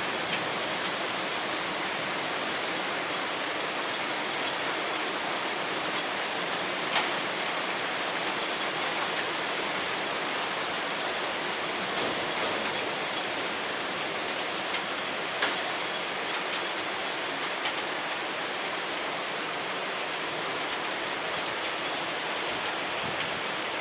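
Steady rain from a thunderstorm, with a few sharp taps of drops landing near the microphone. No thunder is heard.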